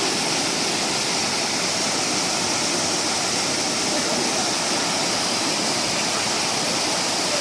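Rushing water of a valley stream, a steady, even roar of flowing and falling water.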